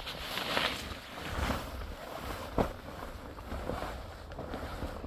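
Heavy canvas tent cover rustling and flapping as it is hauled over a metal tent frame, with wind buffeting the microphone. One sharp knock about two and a half seconds in.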